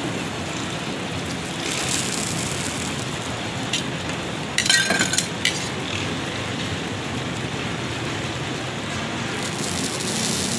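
Egg and oil sizzling on a large flat griddle, over steady street traffic noise. About five seconds in comes a short metallic clatter of steel tongs.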